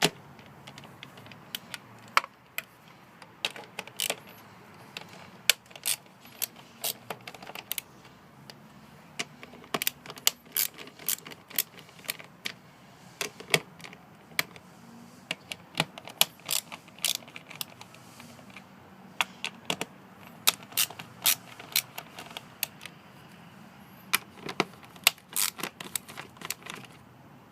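8mm socket ratchet clicking in quick, irregular runs as the screws of the air filter housing are loosened one after another.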